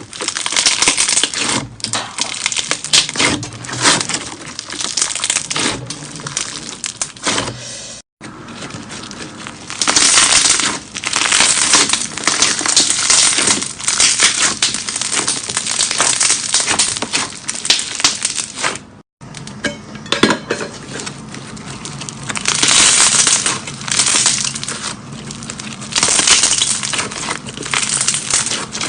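Slime being squeezed and worked by hand, making a dense run of crackling, popping clicks. The sound breaks off abruptly twice.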